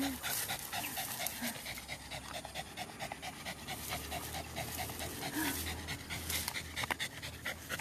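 A dog panting rapidly, about six quick breaths a second, then easing off after about five seconds.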